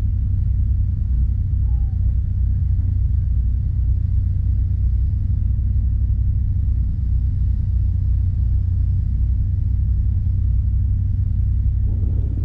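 A steady, low rumble of a running engine, even in level with no change in pitch.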